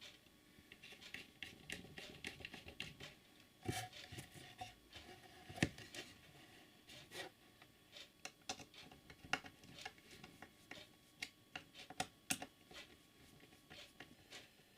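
Quiet, irregular small clicks, taps and scrapes of hands working on wires and small plastic parts while wiring a vacuum cleaner's cord-rewind reel to a socket, with two sharper clicks a little before 4 s and just before 6 s.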